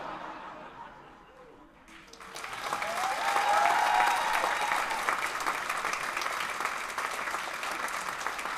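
Audience applause: after a quieter lull it starts about two seconds in, swells quickly and holds steady.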